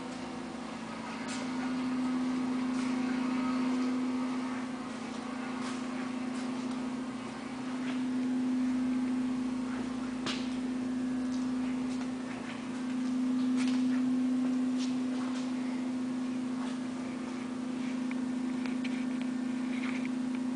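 A steady low hum that swells and fades every few seconds, with scattered light clicks.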